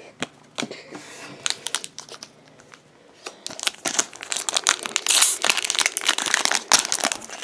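Foil wrapper of a Pokémon booster pack crinkling as it is ripped open across the top by hand. A few light clicks of card handling come first, then dense crinkling about halfway through.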